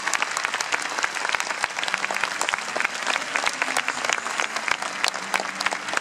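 A large crowd applauding: dense, steady clapping from many hands at once.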